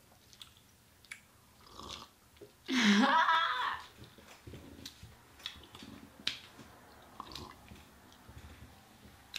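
Chicken wings being bitten and chewed, with scattered wet mouth clicks and smacks. About three seconds in comes a loud, short vocal sound from one of the eaters, about a second long.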